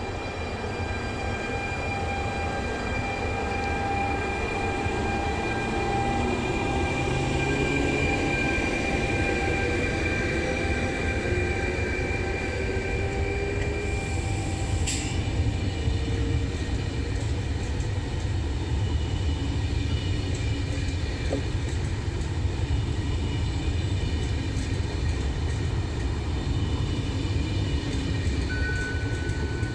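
Trenitalia E.464 electric locomotive and its Vivalto double-deck coaches passing on the rails: a steady low rumble of wheels on track. High whining tones from the locomotive fade about halfway through as it moves away, and a short sharp click sounds about midway.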